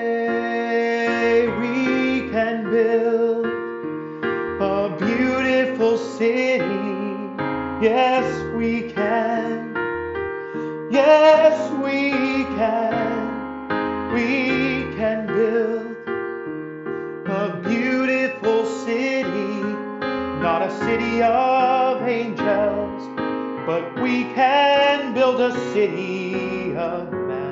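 A slow song sung by a male singer to piano accompaniment.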